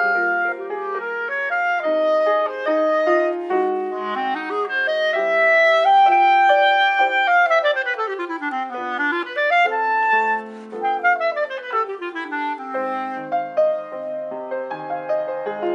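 Clarinet and grand piano playing a classical duo. Held melody notes give way about halfway through to fast running passages that sweep down, back up and down again.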